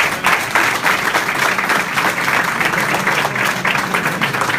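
Crowd applauding: many hands clapping in a dense, steady patter.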